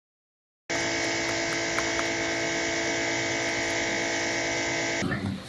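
A machine running with a steady motor hum, several constant tones over a hiss. It starts abruptly just under a second in and cuts off sharply about half a second before the end.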